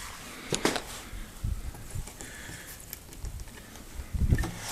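Scattered light knocks and clicks of handling, with the impact driver not running.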